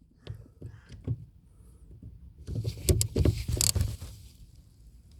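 Ratchet wrench working a 13 mm bolt tight: scattered faint clicks at first, then a louder run of clicking and metal scraping about halfway through.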